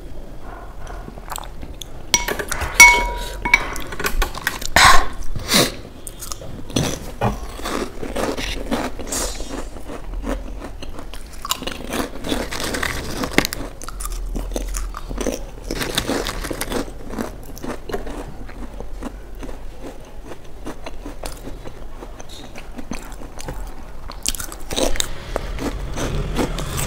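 Crunching and chewing of fried snack chips, with a few sharp clinks that ring briefly between about two and five seconds in.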